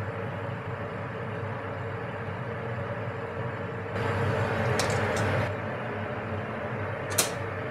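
Steady hum of commercial kitchen ventilation, with a louder rush of noise for about a second and a half past the middle and a single light clink near the end.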